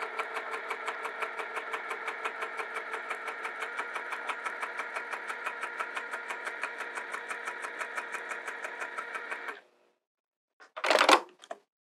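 Juki TL-2000Qi sewing machine stitching a zipper to fabric, its needle running in a steady even rhythm of several strokes a second, then stopping abruptly. About a second later there is a brief loud burst of noise.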